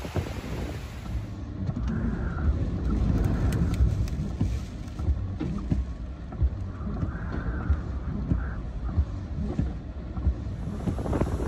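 Storm wind buffeting a phone microphone: a heavy low rumble that swells and eases with the gusts, with scattered knocks.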